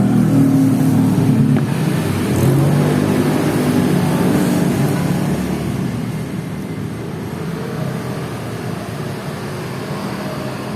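A motor vehicle engine running, louder in the first few seconds and settling a little lower about halfway through.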